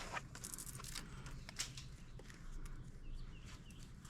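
Faint rustling and scraping of stripped wire being handled and rolled up by hand, with a bird chirping repeatedly near the end.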